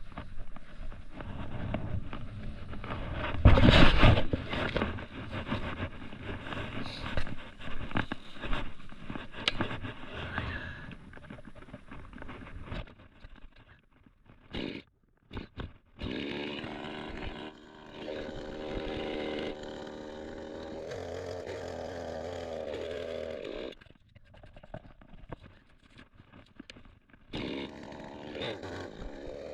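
Getell chainsaw: first a stretch of crackling and rustling with one loud thump about four seconds in. After a few short bursts about halfway, the saw's engine runs steadily, drops away for a few seconds, and runs again near the end.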